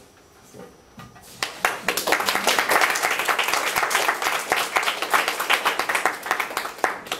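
Audience applauding, starting about a second in after a brief quiet.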